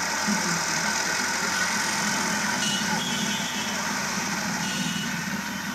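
Indian street ambience: motor traffic running, with a crowd's voices mixed in.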